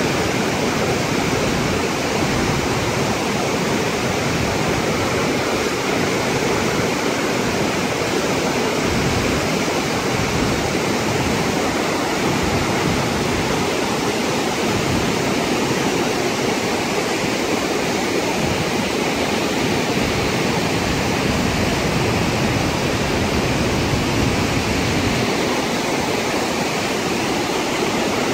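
A waterfall in flash flood: muddy storm runoff pouring over a cliff and rushing down a rocky canyon channel in a steady, unbroken rush of water.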